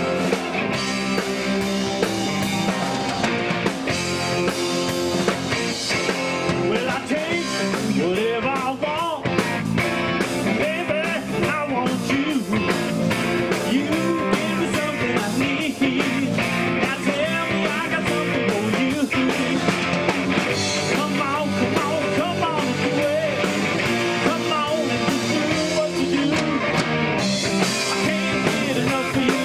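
Live rock band playing: electric guitars, bass guitar, keyboards and drums, with singing.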